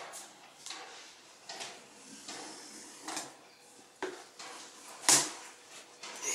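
Taped cardboard carton being worked open along its top seam: irregular scratchy scrapes and rustles of tape and cardboard, with one louder sharp scrape about five seconds in.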